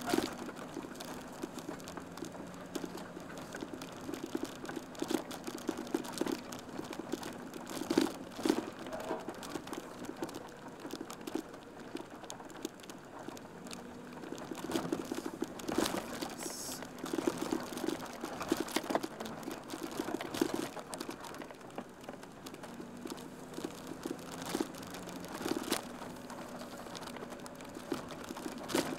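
School van engine running at low speed, heard from inside the cabin, with a steady low hum and frequent irregular rattles and knocks as the van rolls slowly over rough ground.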